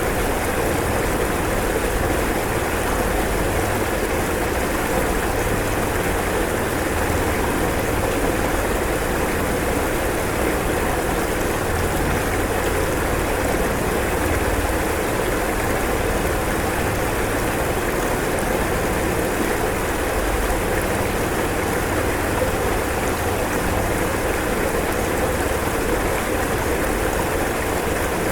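Fast-flowing floodwater rushing steadily, an even wash of water noise with no breaks.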